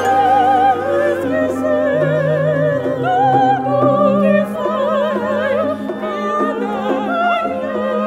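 Two women singing operatic lines in strong vibrato, their voices overlapping, over a small instrumental ensemble that holds low sustained notes.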